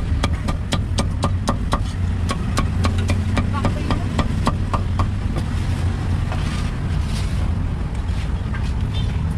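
A meat cleaver chopping crispy-skinned roast pork belly on a round wooden chopping block: quick, even strikes about four a second for the first five seconds, then only a few scattered knocks. A steady low rumble runs underneath.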